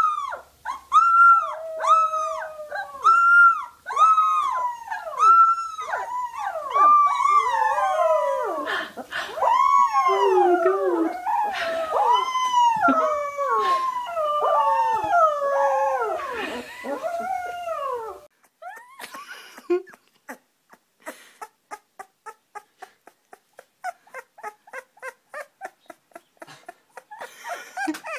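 Young puppies crying in high, arching howls and whimpers, one cry about every second. From about a third of the way in, a second puppy cries along with the first, so the cries overlap. The crying stops about two-thirds of the way through, leaving faint quick clicks.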